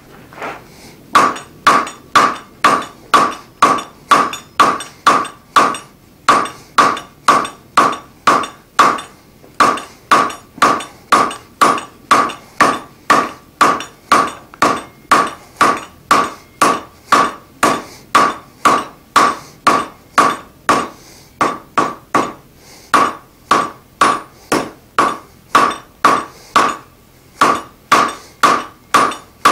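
Hand hammer striking a red-hot bar over the anvil horn, about two blows a second, each with a short ring, drawing the half-inch square stock out longer. The hammering starts about a second in and stops briefly a few times as the bar is turned.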